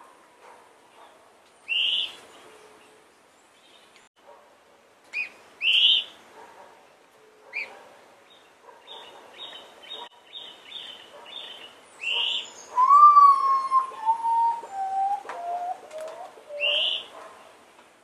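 Common potoo singing its mournful song, a series of clear whistles that step down in pitch, note by note, over about four seconds in the second half. Other forest birds call around it with short loud chirps and a quick run of high notes.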